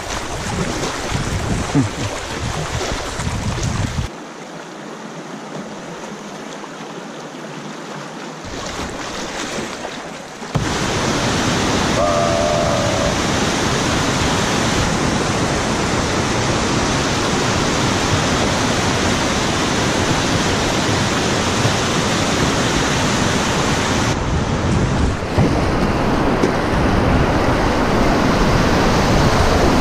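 Rushing whitewater of a river rapid and weir, with paddle strokes splashing over it at first. About four seconds in the rush drops to a softer flow. About ten seconds in it jumps back to a loud, steady rush of white water heard close up from the kayak.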